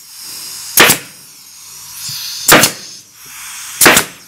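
Super Works pneumatic stapler firing three staples into a cardboard-and-MDF mold, each a sharp crack, roughly a second and a half apart, with a steady hiss between shots.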